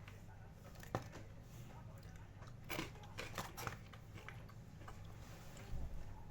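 Quiet eating and handling noises: scattered light clicks and crinkles, with one sharp click about a second in and a small cluster of them around the middle.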